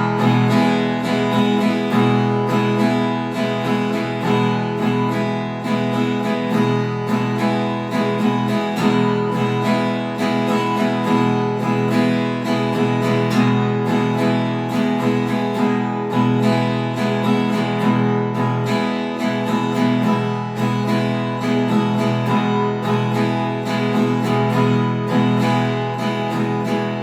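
Acoustic guitar strummed steadily on an E major chord in a repeating six-stroke strumming pattern: down, down, up, up, down, up.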